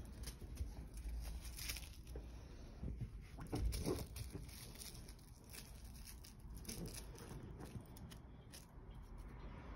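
Crinkly tinsel wand toy rustling and crackling in irregular bursts as a Turkish Angora cat bats at it, mixed with the rustle of the sheet under its paws. The crackle is loudest about three and a half seconds in.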